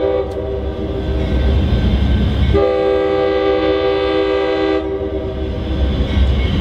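Amtrak diesel locomotive's air horn sounding a chord of several notes as the train approaches: one blast fading out about a second and a half in, then a second long blast from about two and a half seconds to nearly five seconds. A low diesel engine rumble runs underneath.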